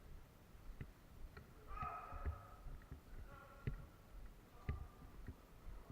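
Scattered sharp clicks and knocks, about six in all, with faint distant voices calling a couple of times.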